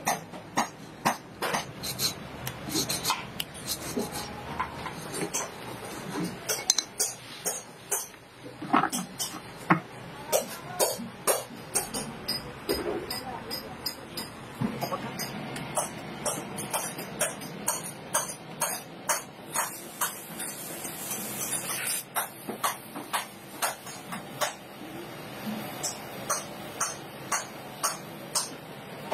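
A small hammer tapping on lead-acid battery plates laid on a stone block: many sharp metallic taps, unevenly spaced at about one or two a second.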